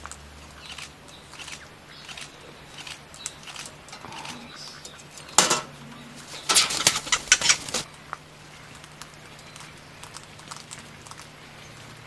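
Kākā beating its wings in a short burst of loud flaps a little past halfway, with faint scattered ticks around it.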